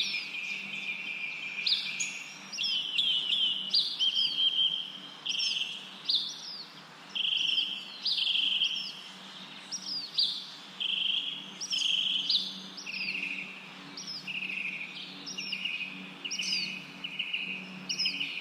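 Birds calling over and over, about once a second. Each call is a short high note sliding downward followed by a lower, longer note, over a faint steady hum.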